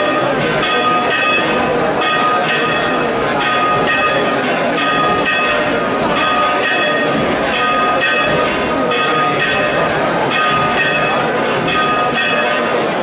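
Church bells ringing, struck over and over so that the strikes overlap into a continuous peal. A crowd murmurs underneath.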